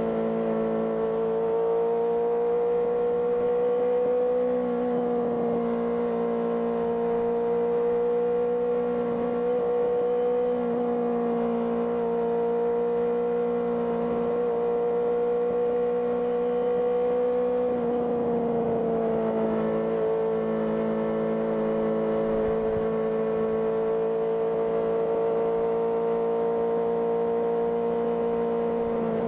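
Honda CBR650R's inline-four engine running through an IXIL IXRACE aftermarket exhaust at steady cruising revs. The pitch dips slightly a few times as the throttle eases, most clearly about 18 seconds in, then holds steady again.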